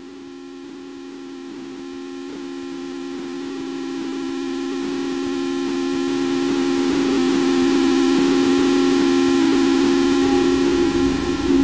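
Music fading in: a held two-note drone with a hiss of noise over it, growing steadily louder, with low notes coming in near the end.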